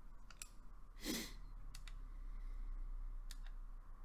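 Small plastic-and-metal button clicks on a Koopor Primus 300W box mod as its menu buttons are pressed, several clicks mostly in quick pairs. A short breath about a second in is the loudest sound.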